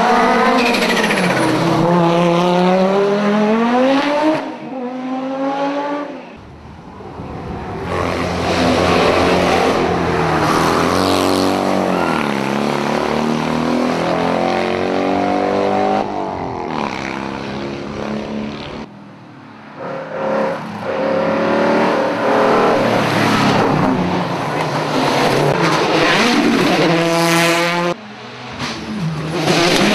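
Rally cars passing one after another at competition speed, their engines revving hard and sweeping up and down in pitch through gear changes and braking. There are short lulls between passes, a few seconds in, around two-thirds of the way through, and near the end.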